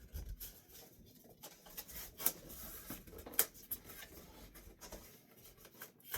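Cardboard shipping box being opened by hand: scratching and rubbing on cardboard, with scattered small clicks and two sharp louder snaps about two and three and a half seconds in.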